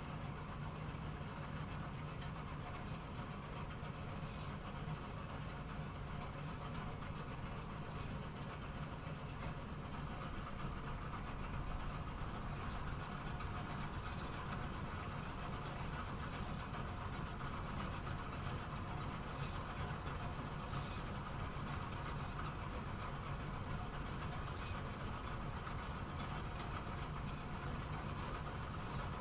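Bowling alley ambience: a steady low mechanical rumble of the lanes and pinsetter machinery, with a few faint, scattered clicks and no loud pin crash.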